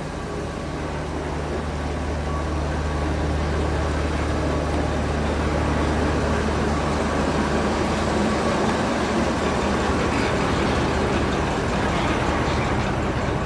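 Steam-hauled train passing close by behind BR Standard Class 4 4-6-0 No. 75069. A steady low hum fades out about eight seconds in, and a louder rushing noise of the passing train builds and holds to the end.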